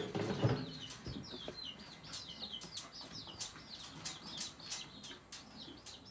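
Young chicks peeping, a steady run of short, high chirps a few times a second. In the first half second there are some louder knocks or rustling.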